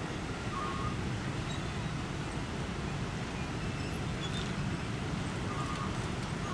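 Steady hum of dense slow road traffic: many small motorcycle engines and a truck engine running as they creep past. A few short high chirps sound about half a second in and again near the end.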